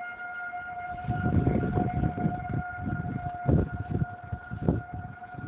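Fire department warning siren holding one steady, unwavering tone instead of its usual rise and fall, which the recordist takes for a siren malfunction. Irregular low rumbles on the microphone sound over it.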